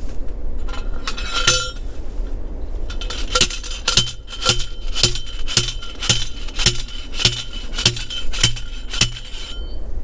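Steel T-post being driven into the ground with a manual post driver: about a dozen metal-on-metal clanks, roughly two a second, each leaving a short metallic ring. A lighter clink about a second and a half in comes before the steady strokes.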